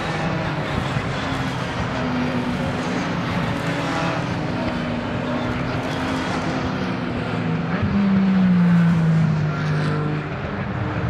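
Engines of Porsche racing cars running through a corner, several cars heard at once. About eight seconds in a louder car comes close, its engine note dropping in pitch as it goes by.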